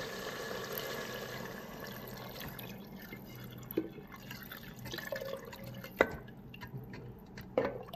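Water pouring in a steady stream from a plastic jug into a rice cooker's inner pot of browned meat and tomato puree, splashing into the sauce. A few sharp knocks are heard, a little under 4 s in, about 6 s in and near the end.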